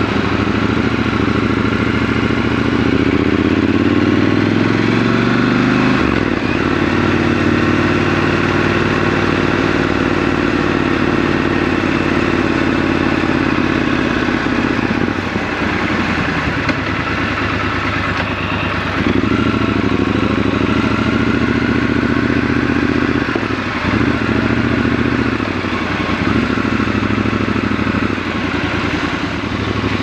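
Triumph Scrambler 1200 XC's parallel-twin engine pulling away and accelerating, its pitch climbing over the first few seconds and then dropping at a gear change. It then runs at a steady cruise, eases off and picks up again, and shifts and slows several times near the end.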